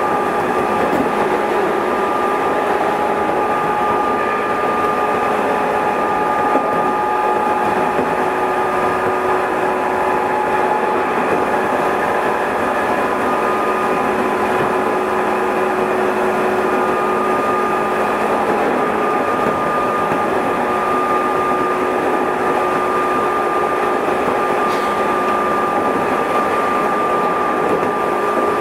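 JR West 213 series 0 electric multiple unit running between stations, heard from on board. Steady rail noise under a whine from the traction motors and gearing, holding a near-steady speed.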